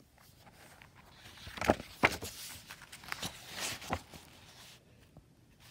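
Handling noise from a phone being picked up and moved over bedding: rustling and several soft knocks, clustered between about one and a half and four seconds in.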